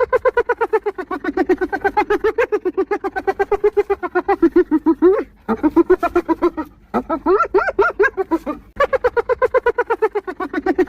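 Spotted hyena laughing: a rapid series of short, staccato, pitched hoots, many a second, in long bouts broken by two brief pauses, about halfway through and again near the end.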